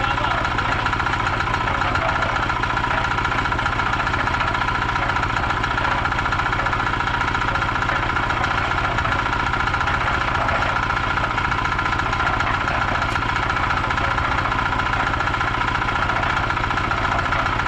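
Small engine of construction equipment running steadily at a constant speed, with a fast, even chugging.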